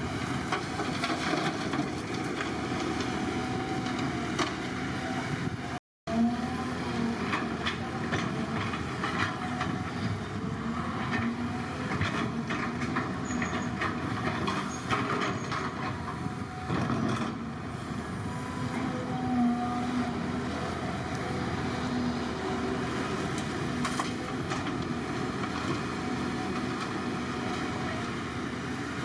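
Excavator working: its diesel engine runs steadily with a hum from the machinery, under frequent knocks and clanks. The sound cuts out completely for a moment about six seconds in.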